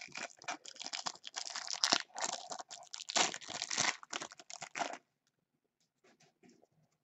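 Clear plastic wrapper of a trading card pack being torn open and crinkled by gloved hands, a dense crackling rustle that stops abruptly about five seconds in. A few faint light taps follow.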